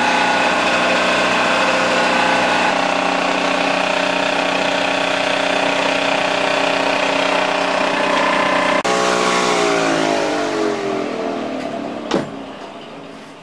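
Philips DP70 70mm film projector running with a steady mechanical hum of several tones. About nine seconds in it is switched off, and its pitch falls as it runs down and fades. A single click comes near the end.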